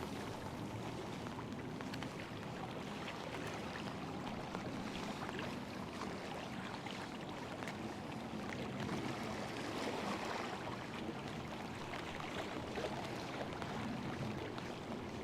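Steady wash of river water along a rocky bank, with a few faint small ticks scattered through it.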